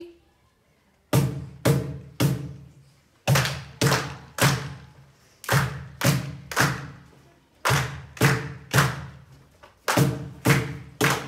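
A deep drum beaten in a steady pattern of three even strokes about half a second apart, then a pause of about a second, repeated five times; each stroke rings briefly and dies away. The beat starts about a second in.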